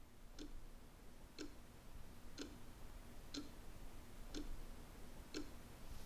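Grandfather clock ticking steadily, about one tick a second. The ticks are faint.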